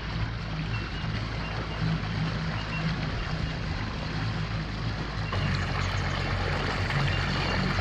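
Outboard motor of a small open boat running steadily as the boat travels along the river, a low drone that gets a little louder about five seconds in.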